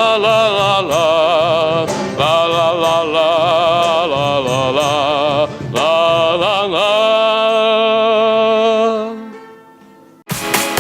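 Sung "la la la" refrain with wide vibrato over the band, ending on a long held note that fades out about nine to ten seconds in. Just before the end, loud electronic dance music with a heavy beat cuts in abruptly.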